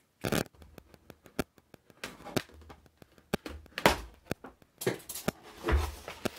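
A cardboard product box being cut open and handled: a small blade slitting the tape, with scattered sharp clicks, taps and cardboard rustling, the loudest knock about halfway through, then the box being pulled apart near the end.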